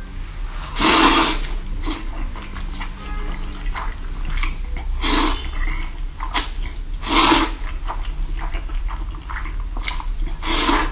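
A person slurping mouthfuls of saucy instant noodles: four loud, long slurps about two to four seconds apart, with smaller wet mouth and chewing noises between them.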